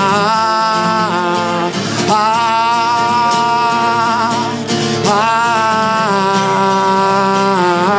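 A man singing three long held notes with vibrato, with short breaks about a second in and about halfway, over a steadily played acoustic guitar.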